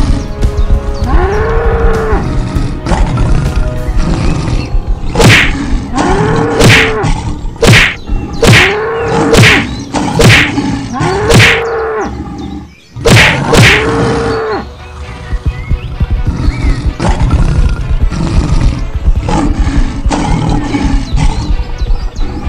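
Cartoon cattle mooing sound effect, repeated every second or two, each call rising and then falling. From about five to fourteen seconds in it is mixed with a quick series of sharp hits, over a continuous loud backing.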